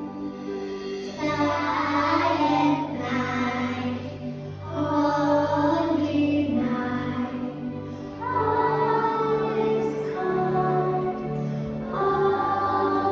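Children singing a Christmas carol with instrumental accompaniment, in four sung phrases.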